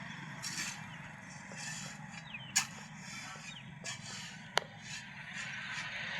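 A machine running with a steady low hum, with scattered light clinks and scrapes and two sharp metallic knocks, one about two and a half seconds in and one about four and a half seconds in, the second ringing briefly.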